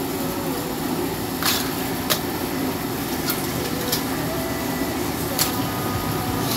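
Live blue crabs shifting in a metal wok, their shells and legs giving a few sharp clicks and taps against the metal, over a steady hum.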